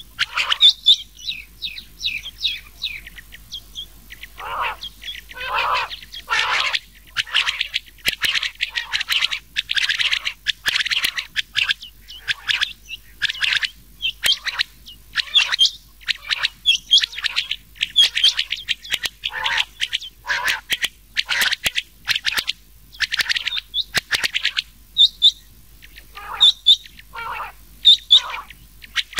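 Rain quail and common quail calls mixed together: short, sharp notes repeated in quick runs with brief gaps, some pitched higher and some lower. It is a quail lure call track of the kind played to draw quail to a net.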